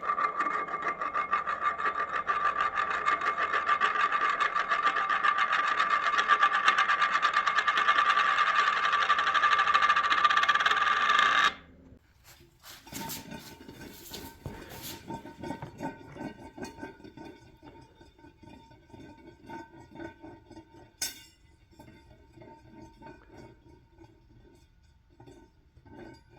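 A handheld power tool runs hard against metal with a fast, buzzing rhythm, then cuts off suddenly about eleven seconds in. This is the chipper-shredder blade wheel being cut and cleaned. Quieter scraping and knocking of metal parts being handled follow.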